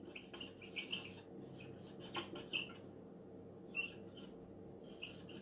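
Whiteboard marker squeaking against the board as letters are written: many short, faint, high squeaks, over a steady low hum.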